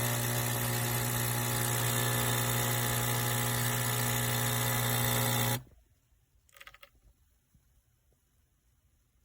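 Nespresso Pixie's vibratory pump buzzing steadily as it pushes water through the machine, then cutting off suddenly about five and a half seconds in.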